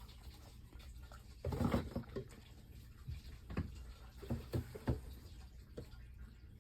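Light irregular taps, knocks and rustles of a plastic squeeze tube and containers being handled on a table, with a short busy cluster about one and a half seconds in and a few single taps later.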